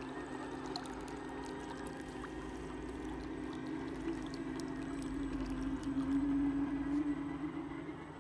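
Radio-controlled model submarine running on the surface: its propeller churns and splashes the water over a low steady motor hum. The sound grows louder about six seconds in and fades near the end as the sub moves off.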